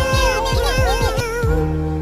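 Background music with a steady beat and a sung or synthesised melody line.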